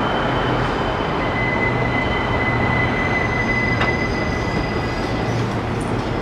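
Subway train running: a steady rumble and rattle, with a thin, high, steady wheel squeal for several seconds in the middle.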